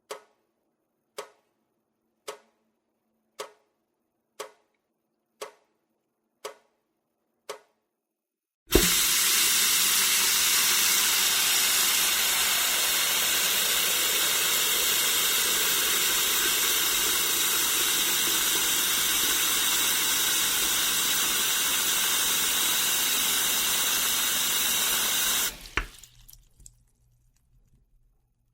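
A clock ticking about once a second, then, about nine seconds in, a sudden loud, steady rush of running water that cuts off after about seventeen seconds.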